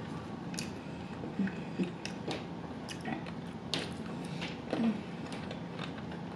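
Close-miked chewing and wet mouth sounds of someone eating barbecue: scattered smacks and clicks, a few louder ones a little past the middle.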